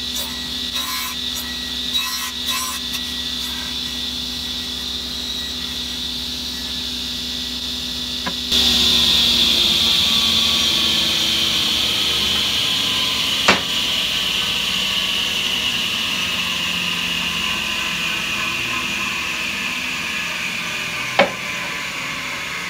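Sliding table saw running, with several short passes of the blade through wood in the first few seconds. From about eight seconds in comes a louder high whine that slowly drops in pitch, and two sharp knocks.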